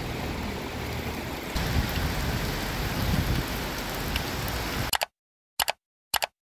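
Steady rain falling on wet ground and puddles, which cuts off abruptly about five seconds in. Two very short sounds follow in the silence.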